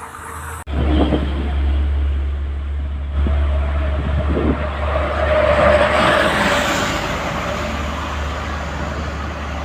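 Large tour bus driving close by: a steady low engine rumble and road noise that start abruptly about a second in, swell to their loudest around the middle, then ease off.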